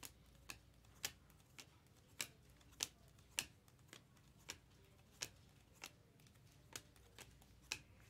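Topps Chrome Cosmic baseball cards being flipped through one at a time, each card giving a faint, sharp snap, just under two a second.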